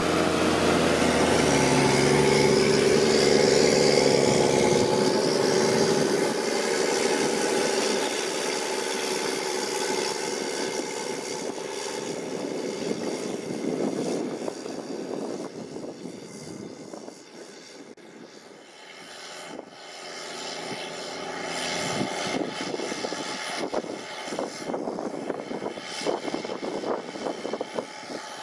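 Caterpillar C9 ACERT turbocharged six-cylinder diesel of a Challenger MT765B rubber-track tractor working hard under load, pulling a four-furrow plough. It is loudest in the first few seconds, fades about two-thirds of the way in, then grows again with a rough clatter as it comes close near the end.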